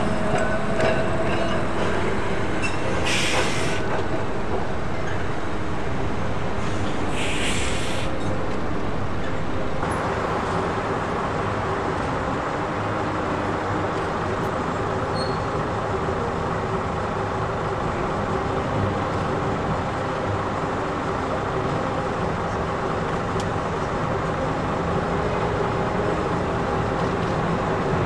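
Balloon double-deck electric tram running past at close range, with two short hisses a few seconds apart. After about ten seconds this gives way to the steady running of the open-top bus, heard from its top deck as it follows trams along the road.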